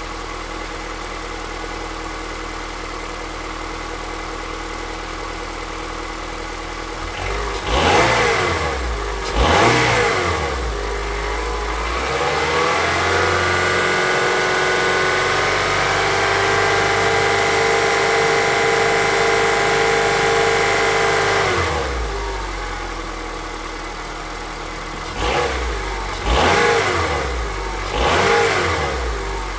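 Honda CR-V 2.4-litre four-cylinder petrol engine running in Drive against the handbrake: idling at first, revved briefly twice, then held at raised revs for about ten seconds before dropping back, and revved briefly three more times near the end. The engine has a knock under load that the owner likens to an engine running without oil; some have told him it is the pistons.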